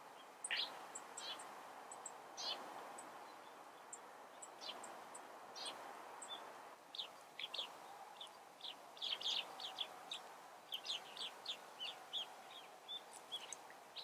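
Small songbirds calling in short, high chirps, a few scattered ones at first, then a quick busy run of them through the second half, over faint steady background noise.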